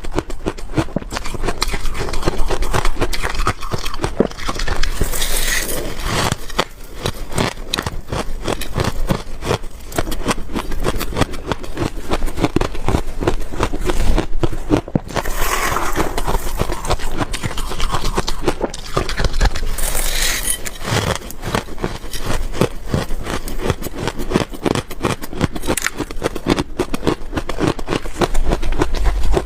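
Close-miked crunching and chewing of freezer frost: dense, rapid crackling crunches that go on without a break, with a few louder grinding swells.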